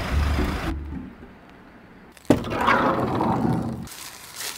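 Background music cuts off, then after a short lull a sharp click as the van's door is opened, followed by the rustle of a plastic rain poncho being put on.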